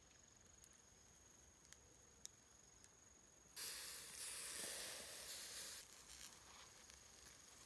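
Food sizzling on a charcoal shichirin grill: a sudden hiss starts about halfway through and dies away after about two seconds. A steady high insect trill and a few faint crackles run underneath.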